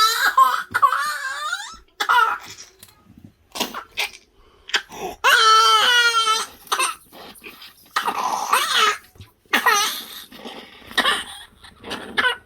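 A young child crying out in repeated high, wavering wails with a cough or two between them, as happens while a child has its nose rinsed with saline wash and suctioned.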